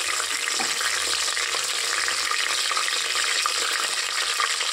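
Whole spices (bay leaves, cloves, cinnamon, cardamom) sizzling in hot oil in a pressure cooker: a steady frying hiss with small pops.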